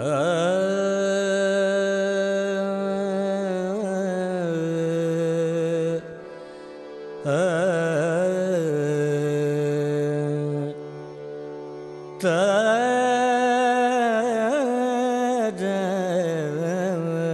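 Male voice singing a Hindustani devotional bhajan in long, slow phrases of held notes with wavering ornaments. The voice breaks off twice between phrases, leaving softer accompaniment underneath.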